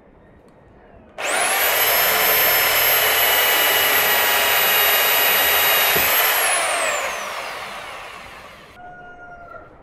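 Handheld electric power tool switched on about a second in, running at a steady high whine for about five seconds, then switched off and winding down with falling pitch over about two seconds.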